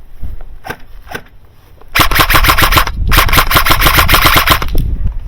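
Airsoft rifle firing on full auto: two fast bursts of rapid, evenly spaced shots with a short pause between them, led by a couple of faint single pops.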